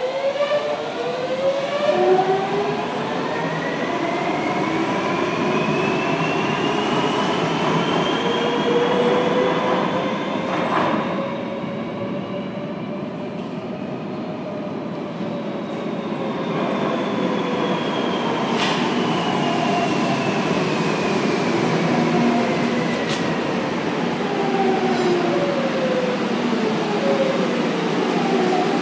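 Madrid Metro Series 3400 electric train's traction motors whining, rising in pitch as it accelerates out of the station. After a lull in the middle, the next train runs in and its motor whine falls in pitch as it brakes to a stop.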